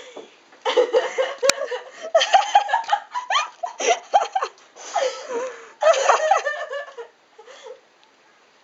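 Girls laughing and giggling in quick, high-pitched runs, with one sharp click about a second and a half in; the laughter dies away about seven seconds in.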